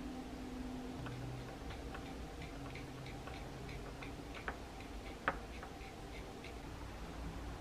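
Cotton swab rubbing back and forth on the plastic cab floor of a scale model truck, making quick light ticks about three a second, with two sharper clicks in the middle, as weathering is worked into the floor.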